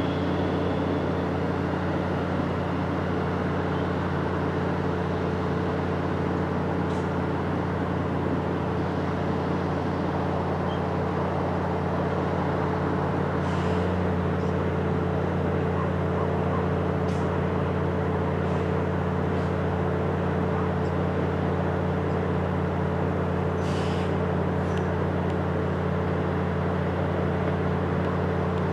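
Diesel train engine idling steadily with an even low hum that does not rise or fall, with a few faint ticks and clicks over it.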